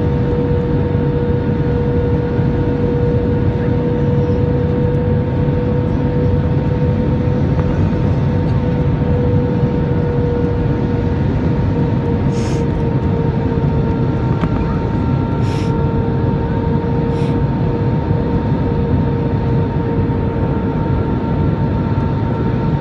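Jet airliner cabin noise from a window seat over the wing during the landing approach: the steady roar of the engines and airflow with a steady engine whine on top. A few faint ticks come in the second half.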